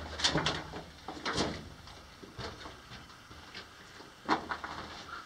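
Irregular footsteps crunching and scraping on loose rock and gravel, a handful of steps spread over a few seconds.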